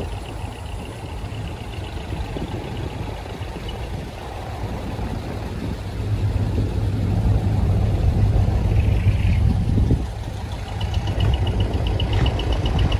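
Truck engines running as decorated trucks drive past on the road. The low rumble grows louder about six seconds in and eases around ten seconds.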